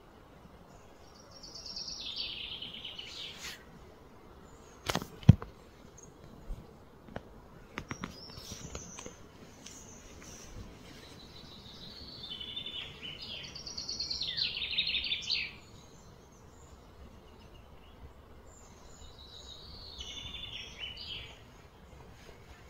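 Sharp knocks and taps from a young western lowland gorilla slapping and handling a block of ice, the loudest a double knock about five seconds in. High trilling chirps come in three spells behind it.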